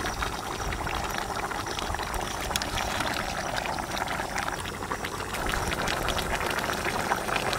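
Curry gravy simmering steadily in a large iron kadai around whole fried chickens, with small crackles throughout, as a ladle pours gravy over the birds.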